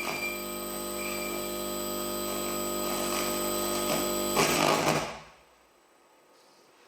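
Experimental live-performance sound: a droning chord of many held tones swells gradually, then a harsh noisy burst about four and a half seconds in, after which the sound cuts off to a faint hush.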